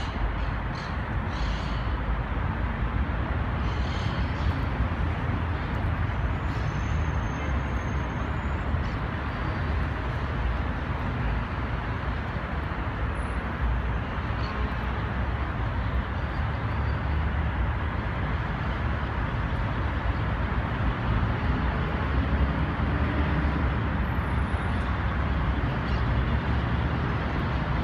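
Steady outdoor city noise: a low, unbroken rumble of road traffic mixed with wind buffeting the microphone.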